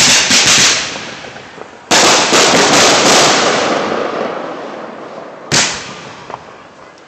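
Aerial fireworks exploding: a quick cluster of loud bangs at the start, then a big burst of several rapid reports about two seconds in that dies away over a few seconds, and one more sharp bang about five and a half seconds in.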